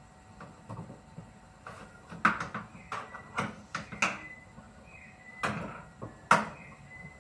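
A run of sharp, irregular metallic knocks and clanks, about ten in a few seconds, some leaving a short ring: parts and tools being handled while a front-loading washing machine is taken apart.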